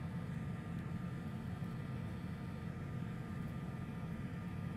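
Steady low hum of running workbench equipment and fans, with two faint steady high whines above it.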